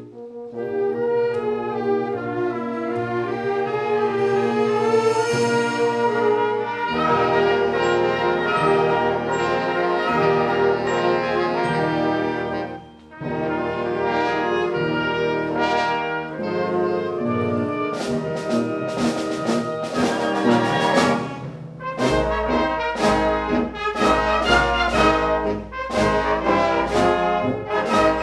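Concert wind band playing, with clarinets and woodwinds first, then full brass. From about two-thirds of the way through, drum and cymbal strokes join over a strong low bass line, after a brief break in the music near the middle.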